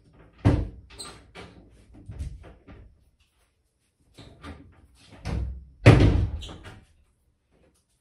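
Two bursts of knocks and bangs, like household impacts: a loud bang about half a second in followed by several lighter knocks, then a second run of knocks with the loudest bang about six seconds in.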